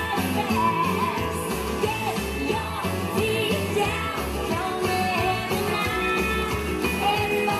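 Rock-and-roll style song with singing over a steady beat, the music for a line dance.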